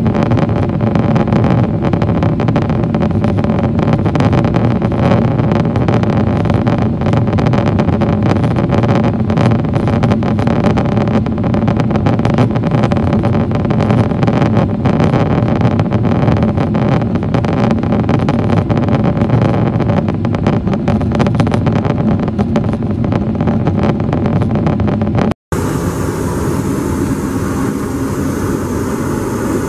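Steady roar inside the cabin of a Boeing 777-300ER in flight, from its GE90 engines and the airflow over the fuselage, heard at a window seat by the wing. About 25 seconds in it cuts off abruptly and a different, steady hum takes over.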